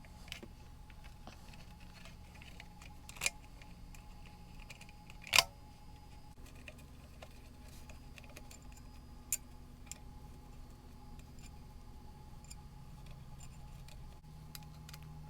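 A few sharp clicks and knocks, the loudest about five seconds in, over a faint low steady hum.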